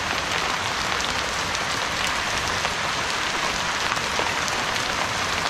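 Heavy rain mixed with small hailstones falling on wet stone slabs: a steady hiss with many sharp ticks of stones striking.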